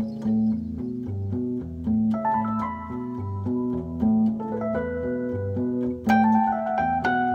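Nord Electro 5D played as a split: a Vox combo-organ sound in the right hand over a Rhodes Mark I electric-piano bass line on the lower two octaves. The bass line moves in a steady rhythm, organ chords come in about two seconds in, and higher, brighter notes join around six seconds in.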